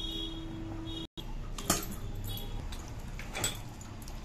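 Marinated chicken being mixed by hand with green chutney paste in a steel bowl, with two sharp clinks against the bowl. A short dropout comes about a second in.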